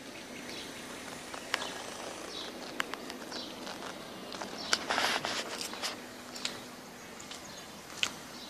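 Outdoor ambience with a few scattered footsteps of wedge-heeled ankle boots clicking on pavement, and a short rustle about five seconds in.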